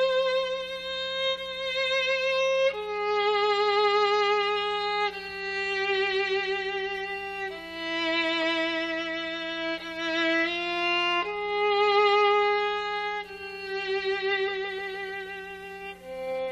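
Solo violin playing a slow, sweet melody of long held notes with vibrato, moving to a new note every two to three seconds.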